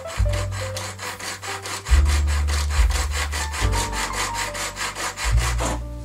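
Hacksaw cutting a thin metal sheet with rapid, even strokes; the sawing stops shortly before the end.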